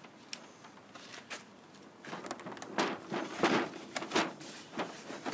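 Handling noise: a quiet stretch, then from about two seconds in a run of short, irregular scrapes and clunks, like something being moved about and set down.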